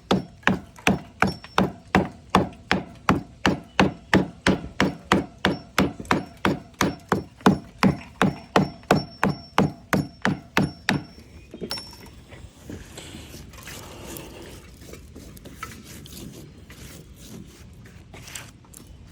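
Hand hammer striking the chimney's deteriorated brick and mortar in steady, even blows, about two and a half a second, stopping about eleven seconds in; after that only quieter, irregular handling noise.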